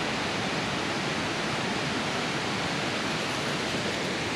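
Steady, unbroken rushing of falling water from a waterfall.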